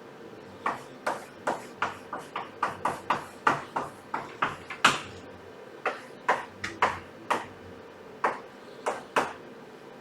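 A pen tapping and striking on paper and a desk during writing: about twenty short, sharp taps at an uneven pace, thicker in the first half and sparser near the end.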